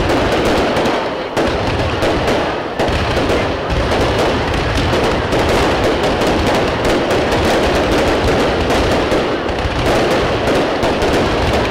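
Aerial fireworks display: many shells bursting at once in a dense, unbroken run of crackling and popping.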